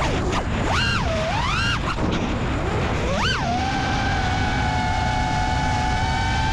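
FPV quadcopter's electric motors whining with throttle, the pitch swooping down and back up in the first two seconds and again briefly a little after three seconds, then holding a steady tone for about three seconds before rising near the end, over a constant rush of wind noise.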